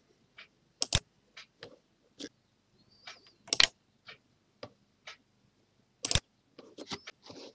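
Computer mouse clicks, about a dozen sharp, irregularly spaced clicks as buttons and menu items are picked.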